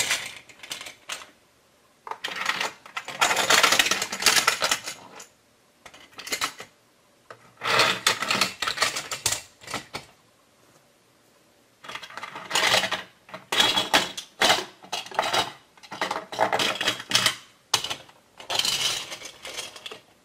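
Diecast metal toy trains rolling and clattering over a plastic toy engine shed's tracks and ramp. The sound comes in about seven short rattling runs, with pauses between them.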